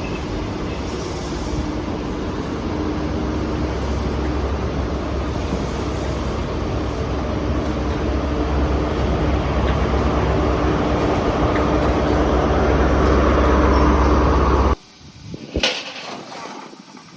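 Inter7City HST moving through the station: its Class 43 power cars' diesel engines hum steadily over the wheel and rail noise, slowly growing louder. It cuts off abruptly about fifteen seconds in, followed by a brief sharp knock and some hiss.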